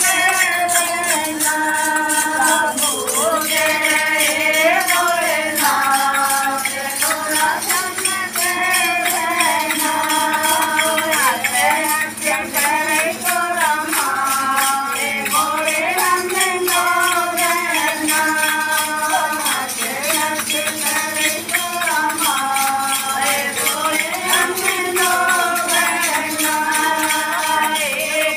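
Hindu devotional song (bhajan) for Hanuman: a voice singing long held notes over jingling, tambourine-like percussion keeping a steady beat.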